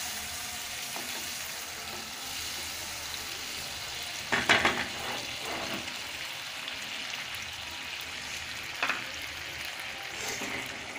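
Mung dal in oil and a little water sizzling in a frying pan as a wooden spatula stirs it, with a louder stroke of the spatula against the pan about four seconds in and a shorter one near the end.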